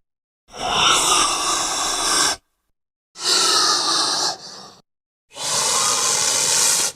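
Velociraptor sound effect: three separate raspy calls, each about one and a half to two seconds long, with dead silence between them.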